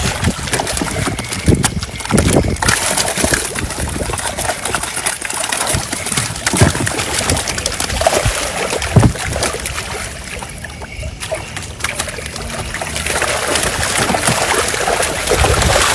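A mass of netted fish thrashing at the water's surface, churning and splashing continuously with many irregular sharp slaps, while fish are grabbed out by hand. It eases off briefly about two-thirds of the way through.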